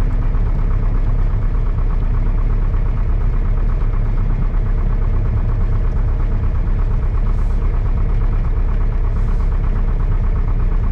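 Piper Cherokee 140's four-cylinder Lycoming O-320 engine and propeller running steadily, heard from inside the cabin as a constant drone.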